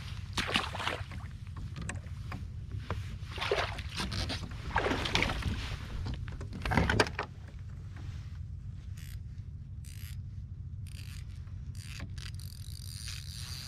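Rustling and knocking of an angler moving about and handling a fishing rod aboard a kayak, with several noisy bursts in the first seven seconds and a few short clicks later, over a steady low rumble.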